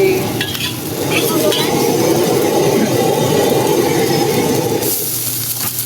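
Stir-frying in a wok: a dense rumbling roar of the pan and flame, changing abruptly about five seconds in to a brighter, hissing sizzle of frying food.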